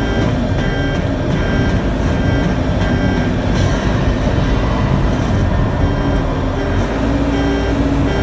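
Cat 420D backhoe loader's diesel engine running steadily, with a radio playing underneath.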